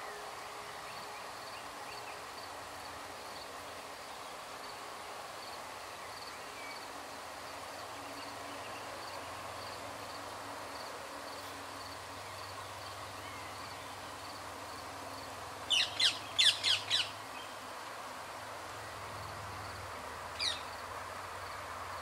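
Rose-ringed parakeet giving a quick run of about five harsh, shrill squawks, then a single squawk a few seconds later.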